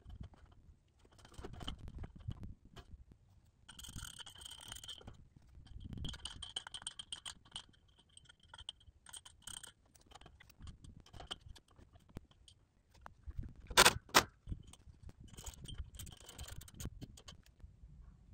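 Metal tools and hardware clinking and jangling in several short bouts as they are handled, with one sharp, loud metal clank about fourteen seconds in.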